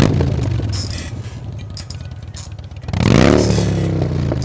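A motor running with a steady low hum, revving up about three seconds in.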